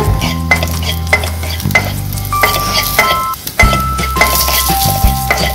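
A wooden spatula stirs cashews and raisins frying in ghee in a nonstick pan, with frequent scraping clicks and a light sizzle. Soft background music with held notes runs underneath.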